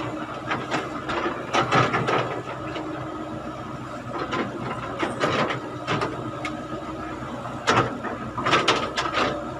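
Caterpillar hydraulic excavator's diesel engine running steadily under digging load. Its bucket scrapes and clatters through stony dirt in several short bursts, about a second and a half in, around five seconds, and near the end.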